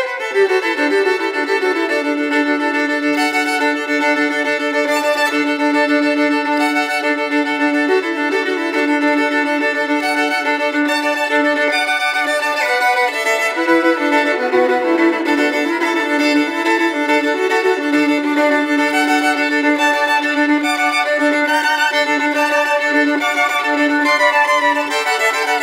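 Background music: a bowed string instrument playing a slow melody of long held notes.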